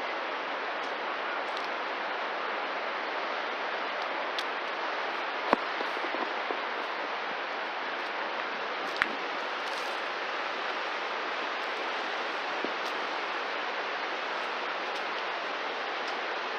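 Steady rushing roar of the Cumberland Falls waterfall, an even wash of falling water that neither rises nor falls. Two sharp clicks stand out briefly, about five and a half and nine seconds in.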